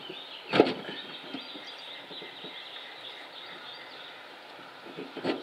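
A sharp knock about half a second in and another near the end as a master cylinder is fitted back onto a truck's hydroboost brake booster, with birds chirping in the background.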